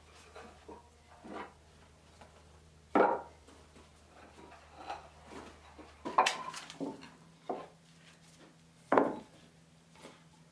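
Wooden rollers knocking and clunking against wooden planks as a heavy stone block is rolled along on them. Three louder knocks, about three seconds apart, stand out among lighter clunks.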